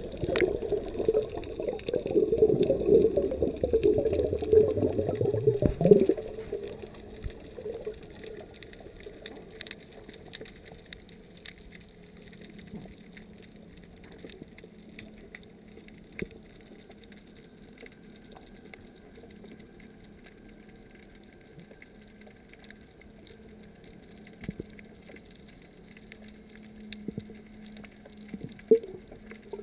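Water and bubbles rushing past a camera held underwater as a snorkeler dives. The sound is loud for about six seconds and then cuts off sharply, leaving a quiet underwater hush with a faint steady hum.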